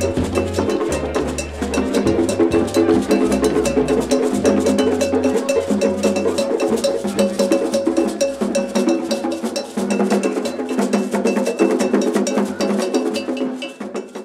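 Upbeat music with a fast, even run of struck percussion over a bass line and held middle notes.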